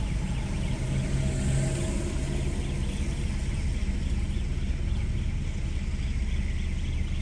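Steady low rumble of a car driving slowly in traffic on a wet road, with engine and tyre noise, heard from inside the car.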